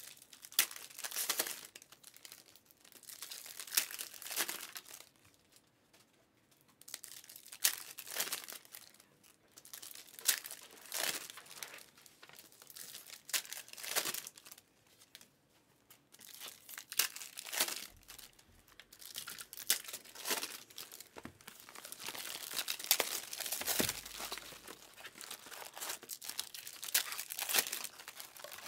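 Trading-card pack wrappers being torn open and crinkled by hand. The crackling comes in irregular bursts every second or two and grows denser and steadier about three-quarters of the way through.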